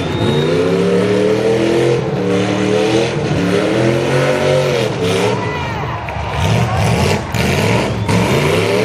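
Demolition-derby car engines revving, their pitch rising and falling again and again, with a few sharp knocks in the second half.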